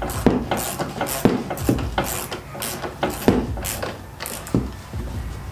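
Socket ratchet clicking as it is worked back and forth on a go-kart's 17 mm front axle nut, tightening it to just snug. The clicks come in quick repeated strokes and stop a little before the end.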